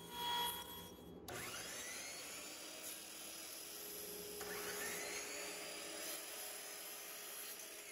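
A table saw finishing a rip cut on a thin shelf strip. Then a miter saw's motor whines up to speed twice, once a little after a second in and again about halfway through, running in between.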